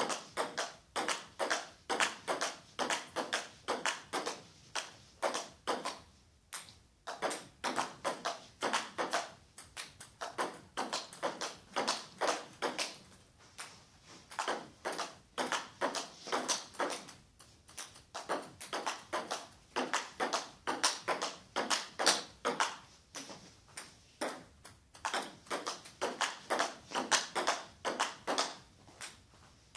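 Table tennis ball clicking back and forth in a steady rally, bouncing off the table and the two bats at about three clicks a second. It stops briefly between rallies a few times.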